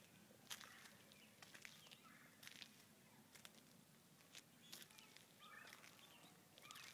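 Near silence: faint outdoor background with a few soft scattered clicks and faint high chirps.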